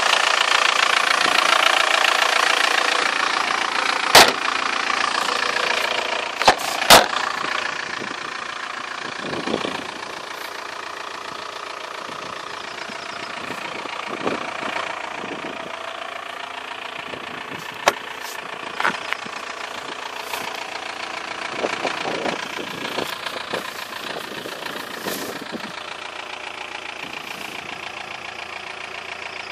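Audi A6's 1.9 TDI four-cylinder turbodiesel idling steadily, growing fainter over the first ten seconds or so. A few sharp knocks stand out, the loudest around four and seven seconds in.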